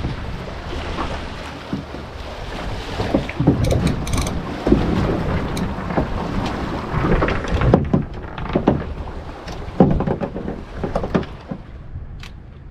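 Wind buffeting the microphone in gusts, with a rushing noise and low rumbles that ease off near the end.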